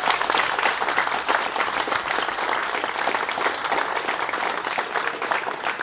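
A small crowd clapping steadily in applause at the end of a speech, a dense patter of many hand claps.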